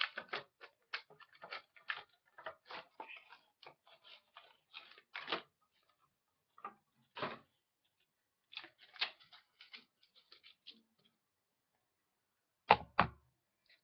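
Gift packaging being unwrapped by hand: a run of short crinkles and clicks, dense at first and thinning out after about five seconds, then two sharp knocks close together near the end.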